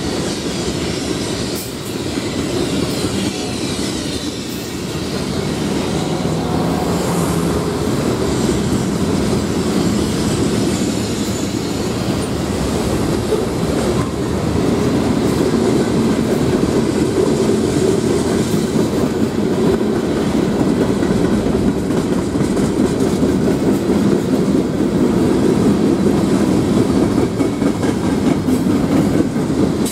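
Freight cars (tank cars, then a boxcar and gondolas) rolling steadily past close by: a continuous rolling noise of steel wheels on the rails, growing somewhat louder about halfway through.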